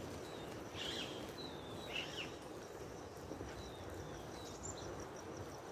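Quiet outdoor ambience: steady low background noise with a few short bird chirps, the clearest two about one and two seconds in.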